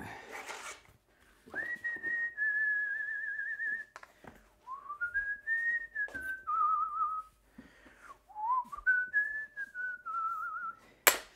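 A man whistling a slow tune in three long phrases, the held notes wavering in a quick vibrato. A single sharp knock comes just before the end.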